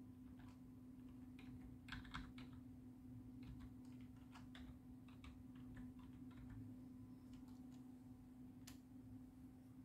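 Faint keystrokes on a computer keyboard as a file name is typed: irregular clusters of clicks, with one sharper click near the end, over a steady low hum.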